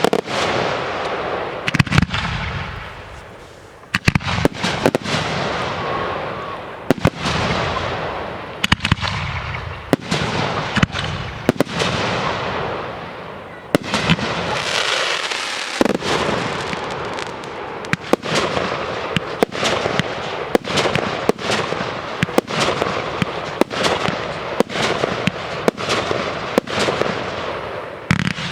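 Aerial fireworks display: a rapid series of shell bursts going off in volleys, with sharp bangs and hissing, crackling noise between them and a brief lull about halfway through.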